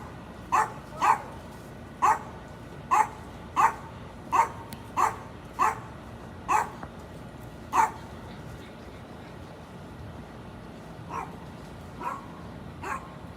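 A dog barking repeatedly, about ten sharp barks in the first eight seconds, then a few fainter barks near the end.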